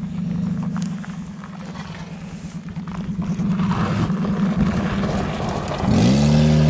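Daihatsu sedan's engine running at a steady low speed as the car drives down a steep gravel mound, with gravel noise under the tyres partway down. About six seconds in, the engine revs up sharply as the car accelerates across loose gravel.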